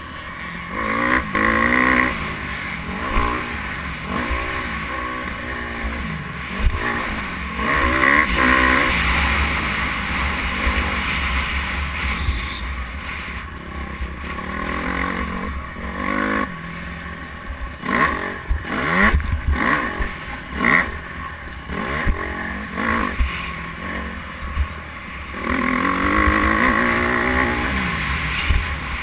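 Motocross bike engine revving hard and dropping back again and again as the rider accelerates, shifts and rolls off around the track. Wind rumble runs underneath, and a cluster of sharp knocks comes a little past the middle.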